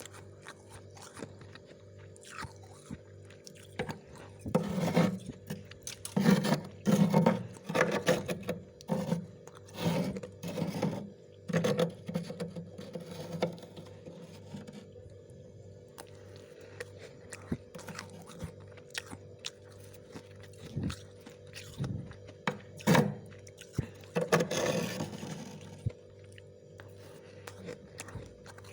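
Close-up biting and chewing of crunchy freezer frost, in clusters of sharp crunches: a run of them from about four to fourteen seconds in, and more near the end. A steady low hum runs underneath.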